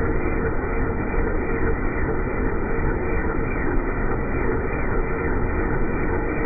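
Helicopter running on the ground with its main rotor turning: a steady, dull drone of turbine and rotor with a faint constant whine.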